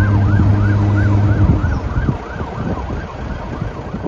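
Emergency vehicle siren in a fast yelp, rising and falling about three times a second and fading away. Under it a steady low drone runs and stops about a second and a half in.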